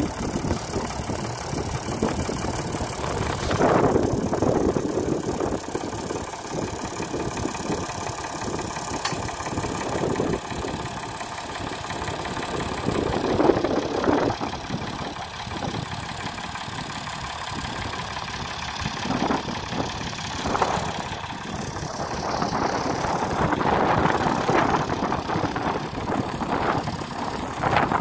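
Ford 4600 tractor's three-cylinder diesel engine running steadily at low revs while it pulls a potato-planting plough, swelling louder a few times.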